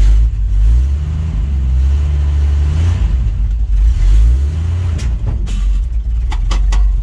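1969 Dodge D100 pickup's engine running in the cab, revved up and down a couple of times while put in drive, the truck not pulling away. A few sharp clicks sound about five to seven seconds in.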